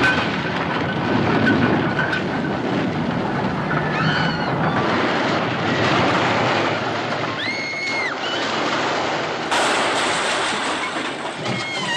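Movie sound effects of a locomotive crash into a station hall: a continuous loud rumble and hiss of the wreck and settling debris. A few short high-pitched tones cut through it, the clearest one near the middle, held for about a second. Near the end the noise turns suddenly brighter.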